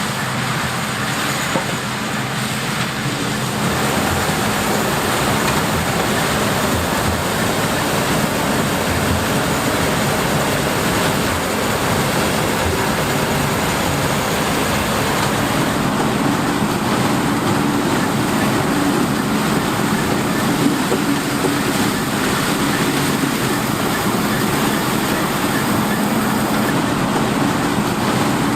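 Diesel harvest machinery running steadily. A constant engine drone sits under a loud, even wash of mechanical noise.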